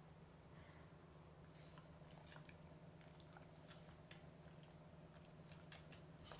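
Faint rustling and soft clicks from a Shiba Inu nosing a piece of food into a torn fabric cushion, over a steady low hum.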